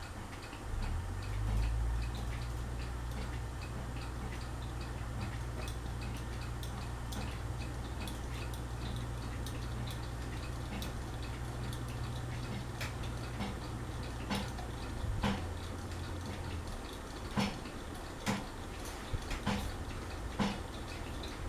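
Craftmade Phoenix ceiling fan running on medium: a steady low motor hum with a regular light tick about once a second. Louder, irregular clicks and knocks come in the last several seconds, as the fan wobbles badly on its bent blades.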